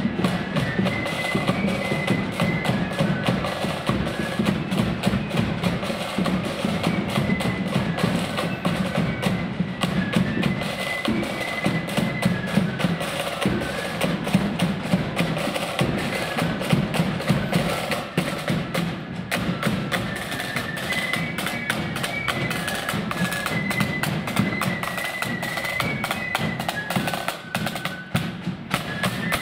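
Marching flute band playing a tune, the flutes carrying a high melody over busy snare drumming and bass drum beats in the heavy blood-and-thunder style.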